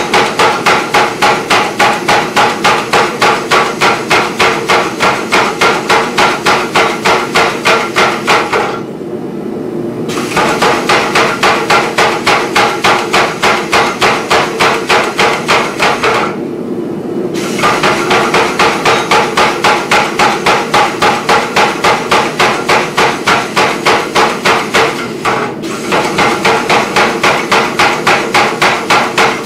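Power hammer striking a red-hot steel bar in a fast, even run of about four blows a second, stopping briefly three times. It is stepping off the stock to leave a rough shoulder.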